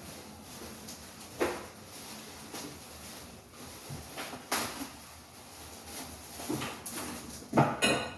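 Scattered knocks and clunks of hard objects being handled, a few seconds apart. The loudest comes near the end and is followed by a brief metallic ring.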